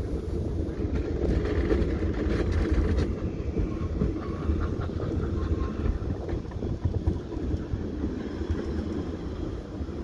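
Fichtelbergbahn narrow-gauge steam train rolling along, heard from beside a carriage: a steady low rumble of wheels on the rails.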